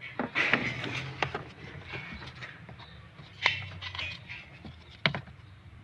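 A few sharp clicks and taps, typical of handling a test lamp and fuses at a car's fuse box, over faint background noise.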